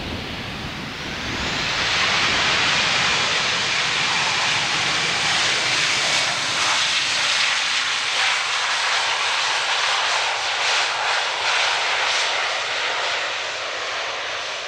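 Airbus A320-214 airliner's CFM56 jet engines on the landing roll just after touchdown, the engine noise swelling to a loud, steady rush about a second and a half in as the aircraft rolls close past, then easing toward the end.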